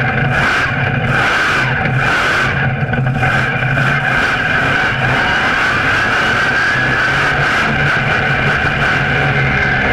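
Monster truck's engine running loud and steady under power as the truck drives, heard up close from a camera mounted on its chassis, with a slow rise in pitch around the middle.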